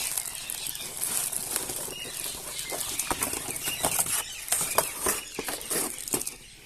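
Crinkling, rustling handling of packaging with many scattered clicks and crackles, dying away near the end.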